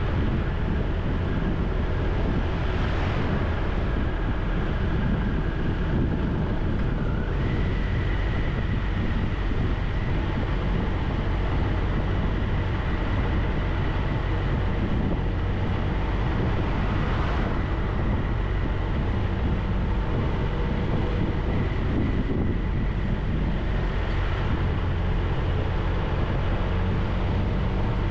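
Triumph Tiger 1200 three-cylinder motorcycle riding at town speed, its engine running steadily under a low wind rumble on the microphone.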